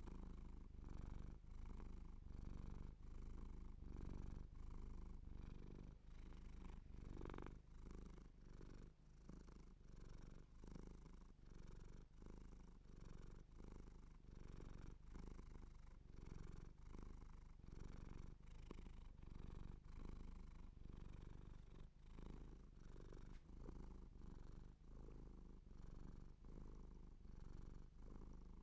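Seal point Siamese cat purring while being stroked, a low steady purr that swells and fades with each breath about once a second.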